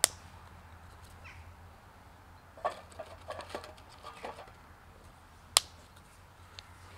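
Small dry twigs snapped by hand: two sharp snaps, one at the start and one more than five seconds later, with a run of lighter cracking and rustling in between as the kindling is broken and loaded into a small metal stick stove.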